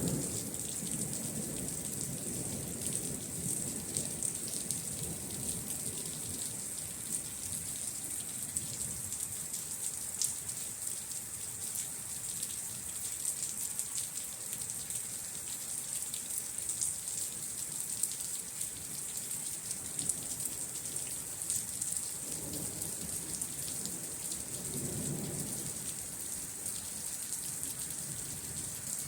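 Steady rain falling, with many small drop impacts, and thunder rumbling at the start, dying away over several seconds, then rolling again a little past two-thirds of the way through.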